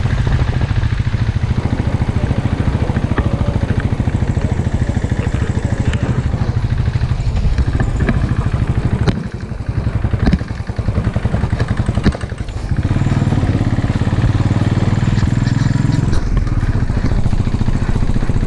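Motorcycle engine running steadily while riding. For a few seconds around the middle the engine sound drops and turns uneven, then it picks up steady again.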